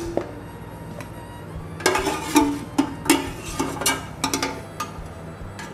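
A metal ladle clinking and scraping against the inside of a metal pressure cooker pot, a quick run of clanks with short ringing tones starting about two seconds in, as boiled beef pieces are scooped out.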